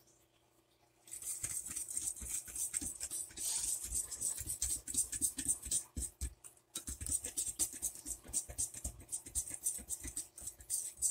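Wire balloon whisk beating a thick ube and glutinous rice flour batter in a bowl: fast, wet, scratchy strokes that start about a second in, with a brief pause just past the middle.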